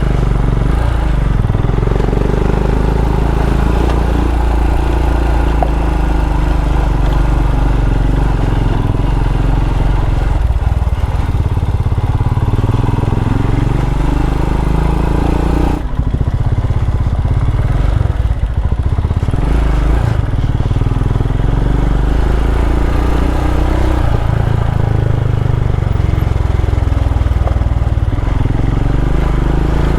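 Single-cylinder adventure motorcycle engine running under way on a dirt track, its pitch rising and falling with the throttle, with a brief dip about halfway through.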